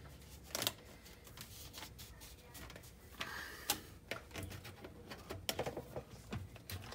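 Light, scattered clicks and knocks of a white plastic sink drain pipe and its slip nut being handled and fitted into place.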